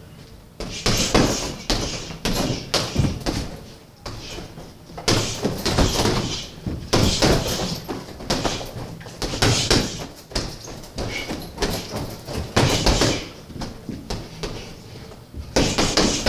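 Punches landing on a heavy bag with thuds, each with a sharp hissing 'shoosh' exhale from the boxer, repeated every second or two.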